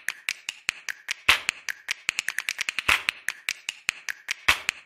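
A rapid run of sharp clicks, several a second, with a louder click about every second and a half.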